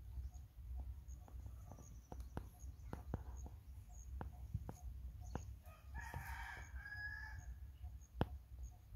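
A rooster crowing once, about six seconds in, lasting over a second. Scattered small snaps and clicks run through it, with one sharper click near the end.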